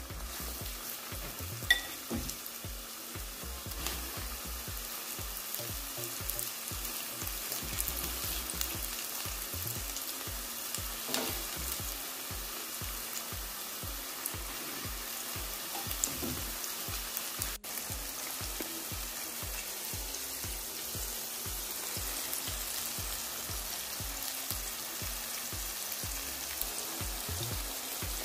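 Flour-coated chicken pieces frying in hot oil in a pot, sizzling steadily with fine crackles. Short metallic clicks of tongs against the pot come now and then as pieces go in, the sharpest about two seconds in.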